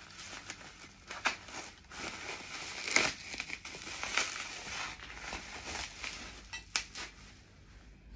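Plastic bubble wrap crinkling and crackling as it is pulled open by hand, in irregular sharp crackles with the loudest about three seconds in.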